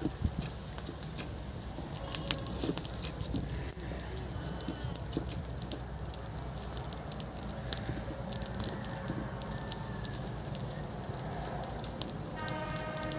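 Straw fire burning over a goat carcass being singed, crackling with many sharp pops and snaps over a low steady rush of flame.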